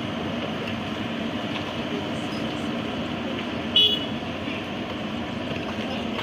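Excavator diesel engine running steadily, with a single short high-pitched horn toot just before four seconds in.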